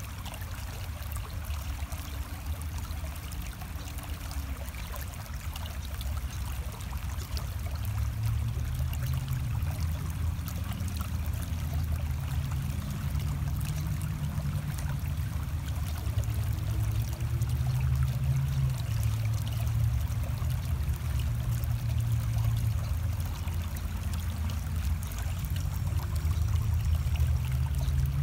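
Shallow creek water flowing steadily over rocks, with a low rumble underneath that grows gradually louder through the second half.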